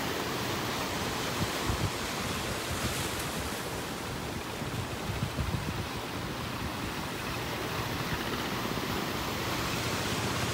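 Sea surf breaking and washing in over a rocky shore, with wind gusting on the microphone a couple of times.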